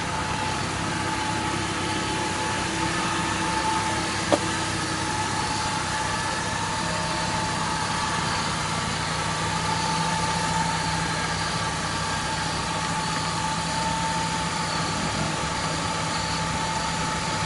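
Ford Crown Victoria Police Interceptor's 4.6-litre V8 idling steadily, with a single sharp click about four seconds in.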